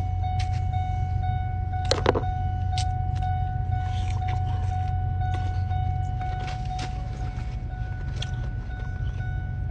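Steady low rumble of a running vehicle engine, with a steady high tone above it and a few short clicks, the loudest about two seconds in.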